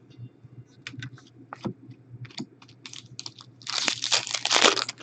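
Trading cards being handled with light scattered clicks and taps, then about three and a half seconds in a loud crinkling tear lasting about a second, a foil pack of hockey cards being ripped open.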